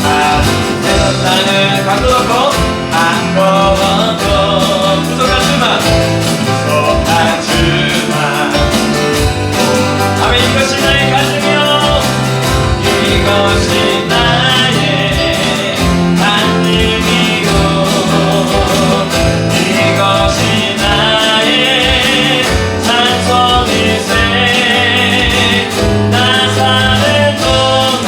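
A live worship band plays a hymn with singing: acoustic guitar, keyboard, bass guitar and electronic drums keep a steady beat under the vocals.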